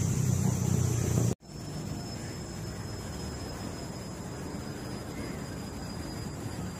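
A steady low rumble with a high hiss cuts off abruptly about a second and a half in. Quieter steady background noise follows, with a faint high whine that slowly falls a little.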